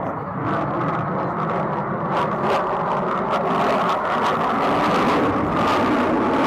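Jet engine rumble of a fighter jet approaching at an air show, steady and edging louder toward the end, with a few faint clicks over it.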